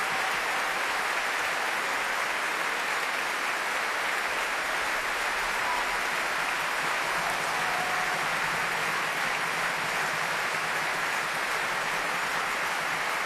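Large theatre audience applauding, a dense and even clapping that holds steady at the close of the performance.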